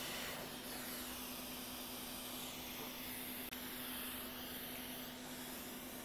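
Quick 861DW hot air rework station blowing a steady hiss of air onto a MacBook logic board chip while it is desoldered. The hiss shifts in tone from about half a second in until about five seconds in, over a low steady hum.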